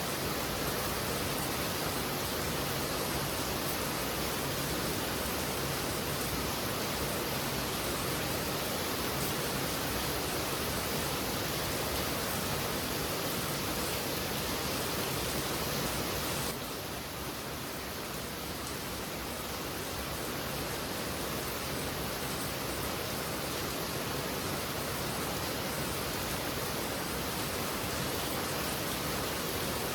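Heavy rain pouring steadily in an even, dense hiss. About halfway through it drops suddenly a little quieter, then slowly builds back up.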